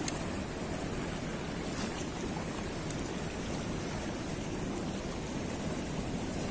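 Fast river current rushing and churning below a barrage's open sluice gates: a steady wash of water noise.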